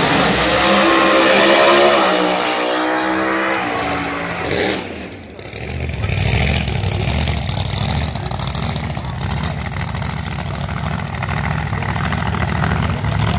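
Drag racing car at full throttle pulling away down the strip, its engine changing pitch as it goes, then fading about five seconds in. After that a lower engine rumbles steadily with a lumpy, pulsing beat.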